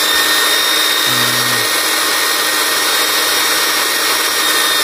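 Corded electric drill running free with no load, switched to reverse, giving a steady high whine at full speed that begins to wind down at the very end.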